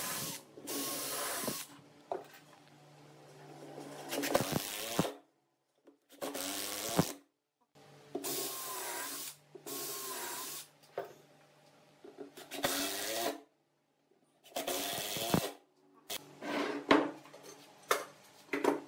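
Cordless drill with a countersink bit drilling into hardwood in about seven short bursts of a second or so each, the motor pitch wavering as it cuts. Several sharp clicks and knocks follow near the end.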